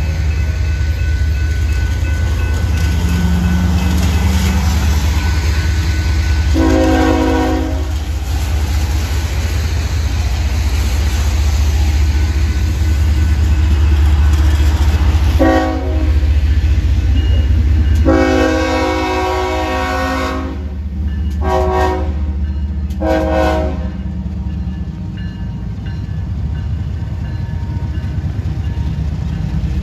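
Florida East Coast freight train's diesel locomotive sounding its horn for the crossing in five blasts: one alone, then four close together, the third of them long. A steady low rumble of the approaching train runs underneath.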